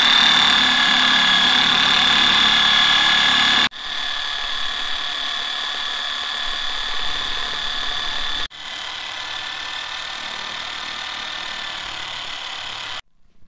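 Small corded electric drill running at a steady speed, its bit stirring liquid in a plastic bucket: a steady whine that breaks sharply twice and stops just before the end.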